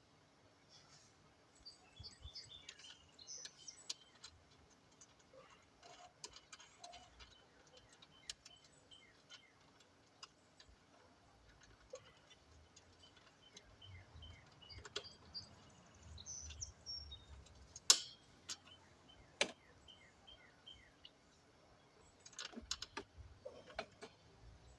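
Scattered clicks and metal clinks of bolts, parts and tools being handled while assembling a lawn mower, with two sharper knocks standing out about three quarters of the way through. Birds chirp faintly in the background.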